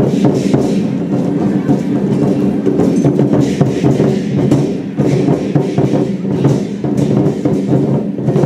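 Lion-dance troupe's war drum and percussion playing a fast, continuous stream of beats.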